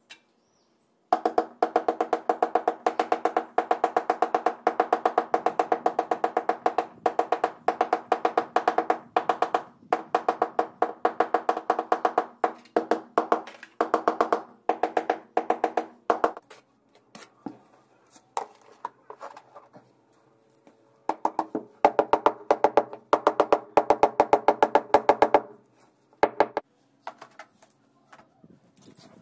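Rapid tapping on a ceramic floor tile, several taps a second, each tap ringing with a pitched tone, as the tile is bedded into tile adhesive. It comes in two long runs with a pause of a few seconds and a few single taps between them.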